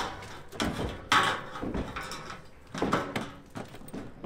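A sheet-metal roofing trim piece being clamped and folded with a hand bender, giving a few sharp metallic rattles and clanks as the panel flexes.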